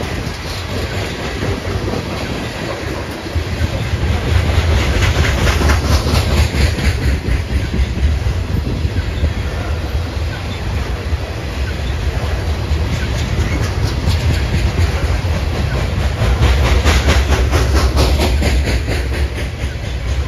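Freight train of coal cars rolling past, steel wheels clicking in a steady rhythm over the rail joints above a low rumble. The clatter swells about four seconds in and again near the end.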